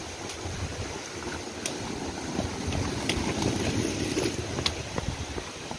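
Wind rumbling on a handheld phone's microphone while walking, with scattered light footsteps on a paved path.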